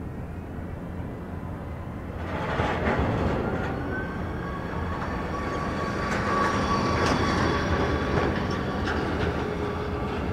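Airport ground service vehicle moving on the apron: a motor running with a rattle and a thin whine, growing louder about two seconds in.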